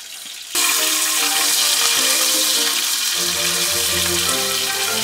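Kangaroo steak sizzling loudly in a very hot frying pan, starting suddenly about half a second in, with background music playing over it.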